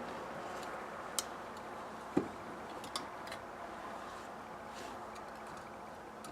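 Three or four sharp light clicks, about a second apart, of hand tools and small metal parts being handled while a carburetor is taken apart, over a steady background hiss.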